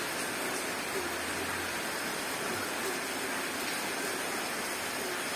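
Heat gun blowing hot air with a steady rushing hiss, used to dry fresh paint quickly.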